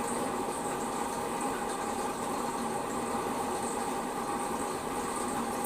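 Honda GX200 single-cylinder four-stroke engine running steadily at an even speed, with no revving.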